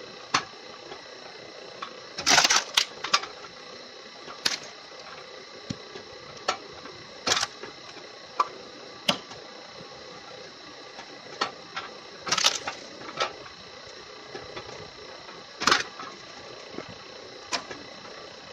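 Homemade firewood processor running with a steady hum, cut by sharp clacks and knocks of wood and metal every second or two, with the loudest clusters about two seconds in and again about twelve seconds in.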